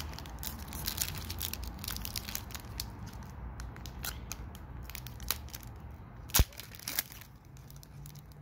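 Foil wrapper of a hockey card pack crinkling and tearing as it is torn open by hand, a dense run of crackles with one sharp snap about six seconds in.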